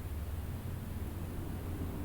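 Steady bedroom white-noise ambience: an even hiss over a constant low rumble, with no change or separate events.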